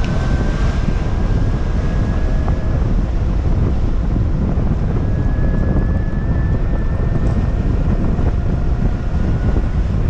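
Wind buffeting the microphone of a camera on a moving e-bike, a loud steady low rumble with city traffic underneath. A faint thin whine sounds over the first few seconds and again in the second half.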